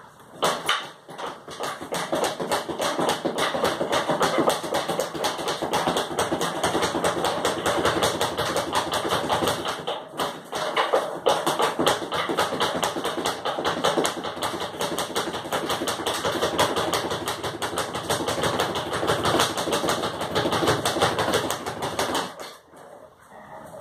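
Speed bag being punched in a fast, steady rhythm, rattling against its rebound platform. The hitting breaks off briefly about ten seconds in and stops near the end.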